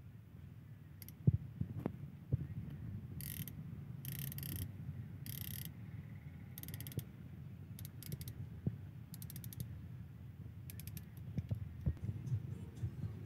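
Ratchet-type piston ring compressor being tightened around a piston to squeeze its rings before it goes into the bore: several short runs of rapid ratchet clicks, with a few sharp knocks of metal on metal.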